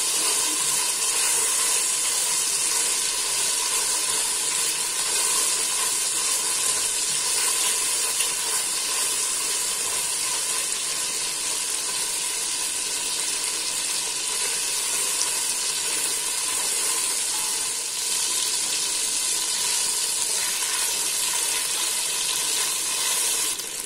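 Oil sizzling steadily in a steel pot as green chillies, mint, coriander, onion and ginger-garlic paste fry, stirred with a silicone spatula.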